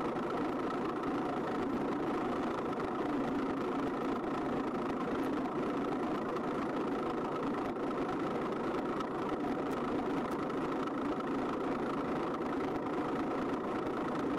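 John Deere 770 compact tractor's three-cylinder diesel engine running steadily, heard from inside its soft cab as the tractor drives along.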